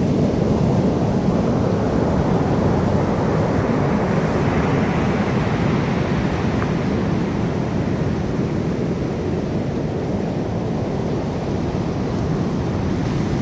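Heavy Pacific surf breaking on the beach: a steady low rumble, with the hiss of a wave washing in that swells about four seconds in and fades by about ten seconds. Wind buffets the microphone.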